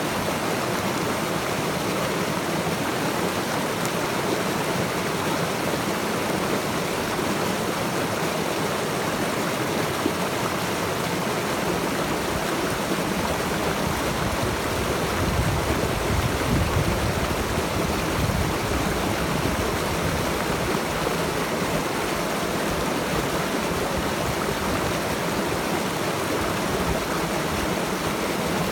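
Stream water rushing steadily over rocks, an even continuous rush, with a brief swell of deeper rumble about halfway through.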